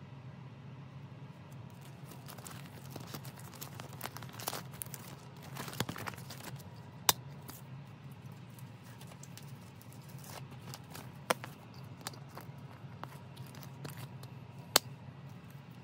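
Clear plastic binder sleeves rustling and crinkling as the pages of a ring binder are turned by hand, with three sharp clicks, over a steady low hum.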